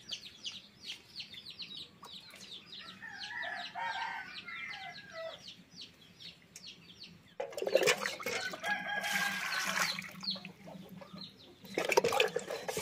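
Birds chirping rapidly, about five chirps a second, with a chicken clucking. Then, about seven seconds in, water splashes and sloshes loudly as raw rohu fish pieces are washed by hand in a steel bowl of water, with another splash near the end.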